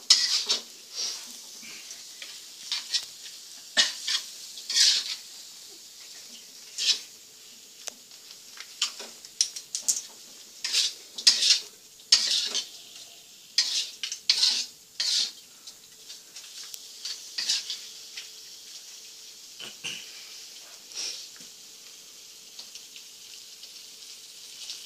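Rice being stir-fried in a frying pan: a spatula scrapes and clacks against the pan in quick, irregular strokes, over a steady sizzle of hot oil.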